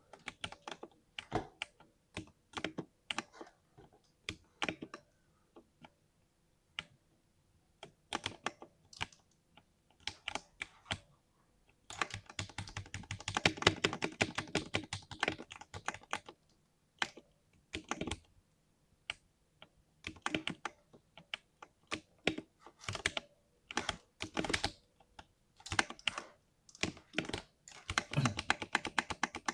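Typing on a 60% mechanical keyboard with a deep thock: scattered single keystrokes, a fast dense run of typing in the middle, and another quick burst near the end.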